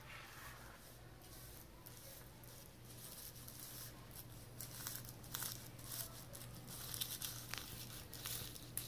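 A knife sawing horizontally through a sponge cake, with faint, irregular scratchy rasps of the blade through the crust and crumb that grow louder and closer together from about three seconds in.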